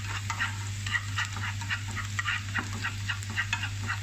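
Minced garlic and chopped chili frying in oil in a nonstick pan, sizzling with quick irregular crackles and pops as chopsticks stir them around. A steady low hum runs underneath.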